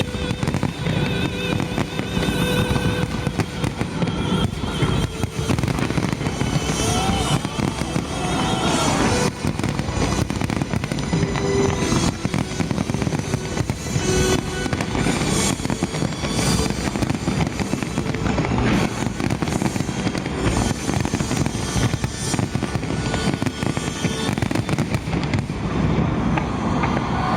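Large fireworks display: a dense, continuous barrage of bangs and crackles, with music playing underneath.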